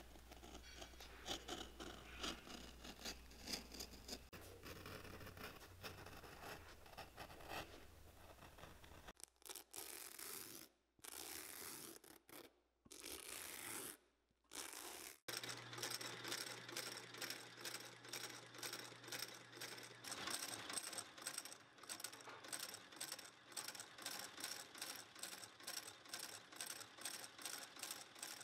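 Shoe-repair work on leather in short cuts. First a finishing machine runs along a boot's welt over a low motor hum. Then a wire brush rasps the flesh side of a leather midsole, and after that comes a steady rhythmic scraping of about two to three strokes a second.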